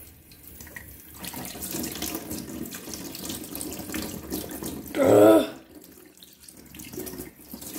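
Tap running into a stainless steel sink, the stream splashing as hands are rinsed under it. A short, loud pitched squeal about five seconds in.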